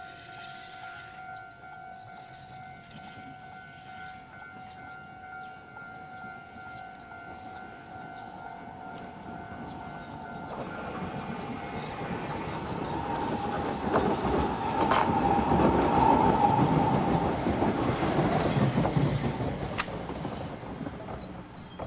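Choshi Electric Railway car 1001, a single electric railcar, rolling in: its wheels and running gear grow louder from about halfway through, are loudest over the following seconds with a few knocks over rail joints, then ease off near the end. A steady two-note tone sounds through the first half.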